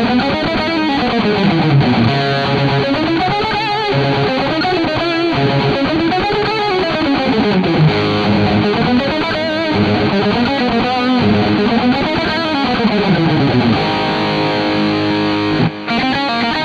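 Electric guitar with high-gain distortion, played on its Astro Burning Blade mini-humbucker bridge pickup: fast runs of picked notes rising and falling in pitch, giving way to held notes near the end, with a very short break just before the close.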